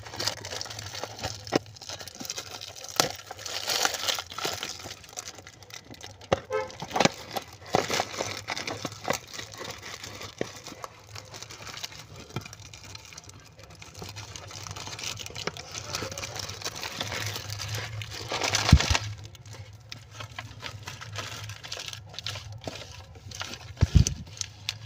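Cardboard gum box being opened and its plastic-wrapped gum pieces handled: irregular rustling, small clicks and crinkling of the wrappers, with a louder rush about three-quarters of the way through as the pieces are tipped out.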